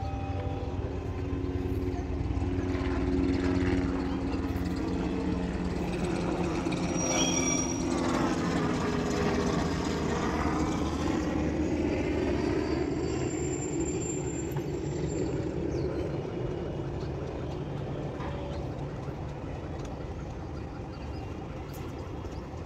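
A motor vehicle's engine running with a steady hum, then a broad rush that swells around the middle and fades slowly, as it passes close by.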